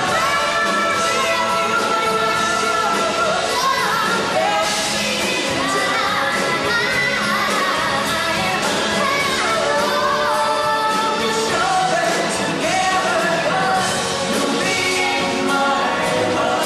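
Live rock band playing with a male lead singer: electric and bass guitars and drums under the sung melody.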